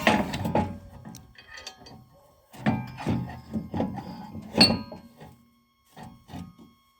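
Irregular clattering knocks and clinks of metal parts and tools being handled at a homemade motor-driven log splitter and can crusher, thinning out after about five seconds.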